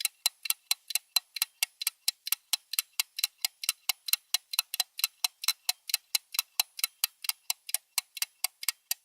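Ticking countdown-timer sound effect: sharp, even clock-like ticks at about four to five a second.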